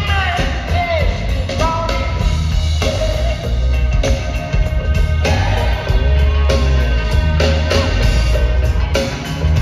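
Live rock band playing a song with a heavy bass line and a steady drum kit beat, heard from among the audience.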